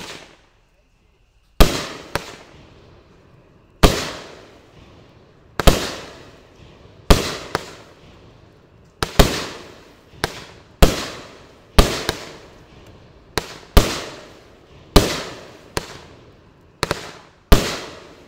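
Winda Mischief Makers 12-shot firework cake firing. About a second and a half in it begins a run of about twenty sharp bangs, irregularly spaced and roughly a second apart, sometimes in quick pairs: shells launching from the tubes and bursting overhead, each bang trailing off.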